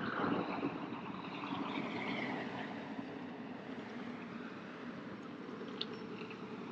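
Steady rushing of water along the hull of a pedal-drive kayak under way, with a couple of faint clicks near the end.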